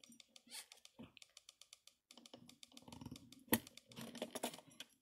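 Singer 237 sewing machine sewing a few slow stitches through a leather loop and nylon webbing: a run of faint, quick clicks from the machine's mechanism, with a short break about two seconds in and one sharper click a little later.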